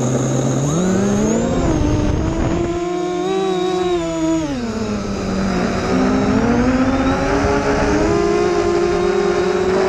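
Brushless motors and propellers of a home-built 215-size racing quadcopter whining close to its onboard camera. The pitch rises with throttle over the first two seconds, drops about four and a half seconds in, then climbs again and holds high.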